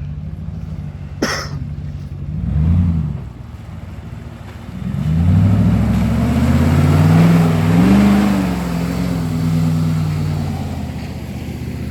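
Off-road 4x4 pickup truck engine idling, with a sharp knock just over a second in. It gives a short rev at about two and a half seconds, then a longer, louder rev from about five seconds in that rises, peaks and falls away over several seconds.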